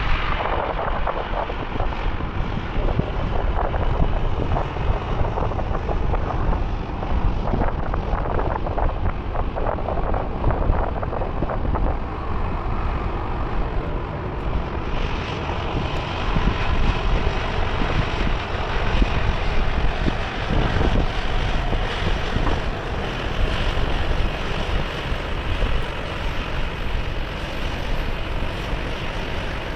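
Jet airliner engine noise, a steady rumble that grows brighter about halfway through, with wind buffeting the microphone.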